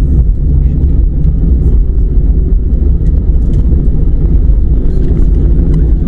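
Steady low rumble inside an airliner's cabin while it taxis, its jet engines running at idle.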